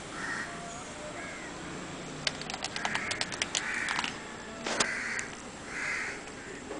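Crows cawing several times in short single calls, with a rapid run of light clicks in the middle and one sharp click shortly after.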